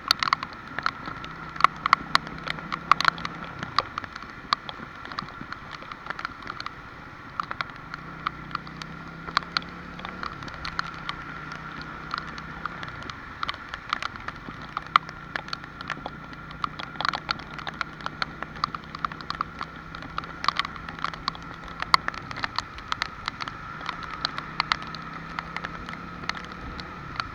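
Rain falling, with many sharp drops striking close by over a steady hiss. Underneath, a low engine hum comes and goes, dying away a few times.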